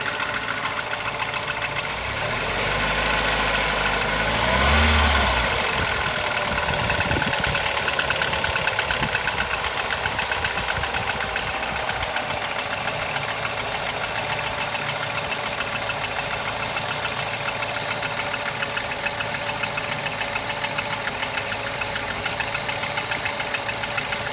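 BMW M43 1.6 four-cylinder petrol engine idling with an even, rhythmic knock, blipped once, rising and falling in speed a few seconds in. The knock is still there after an overhaul with new crankshaft bearings and piston rings, and its cause is unknown.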